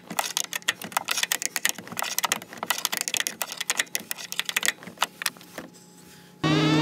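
Ratcheting wrench clicking fast and unevenly as it turns a slide-out adjustment bolt clockwise, then going quiet. Near the end a loud steady motor hum starts abruptly.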